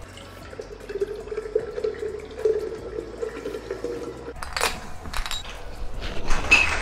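Shaken margarita poured from a metal cobbler shaker into a glass, a steady trickle of liquid for about four seconds. A few sharp knocks follow near the end.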